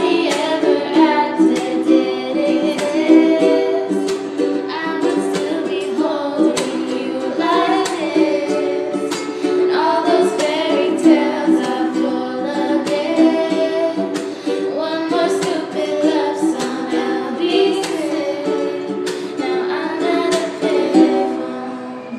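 Acoustic pop cover: a strummed acoustic string instrument keeping a steady rhythm under singing, with the echo of a small bathroom. The playing dies away near the end.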